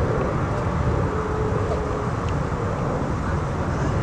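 Jet airliner's engines at takeoff power, a steady low rumble with a faint steady tone above it.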